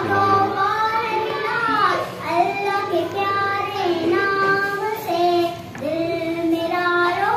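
A young girl singing solo without accompaniment, in long held notes that slide up and down between pitches.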